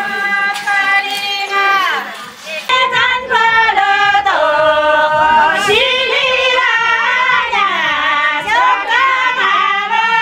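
Group of Kinnauri women singing a traditional song together without instruments, holding long notes that slide down at the end of each phrase. The sound turns fuller and louder about three seconds in.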